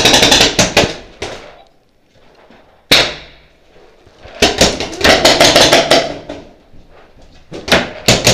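Paintball markers firing in rapid bursts of about ten shots a second: one burst at the start, a single shot about three seconds in, a longer burst around five seconds, and another near the end.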